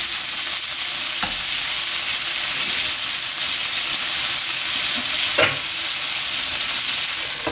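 Whole head-on shrimp sizzling steadily in hot olive oil with chopped garlic and dried chillies in a frying pan, with two brief light clicks, one about a second in and one about five seconds later.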